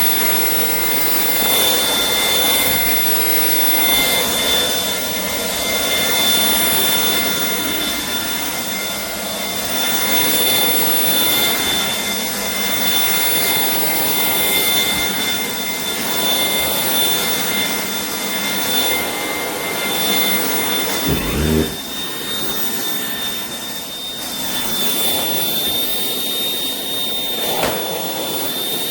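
Shark IP3251 cordless vacuum cleaner running: a steady rush of air under a high motor whine. About two-thirds of the way through, one of the whine's tones drops out with a short low thump, and the remaining whine shifts slightly in pitch near the end.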